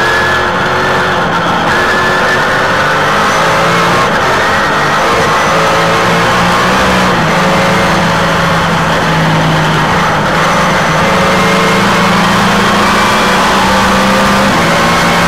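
Trans Am Series race car's engine at racing speed, heard from on board the car, running loud and continuous with small rises and dips in pitch and no pause.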